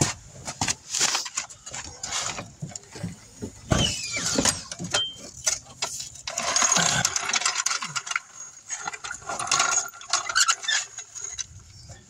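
Hand tools and metal parts clinking and clattering as they are handled and set down: a string of irregular knocks and rattles, busiest in two stretches in the second half.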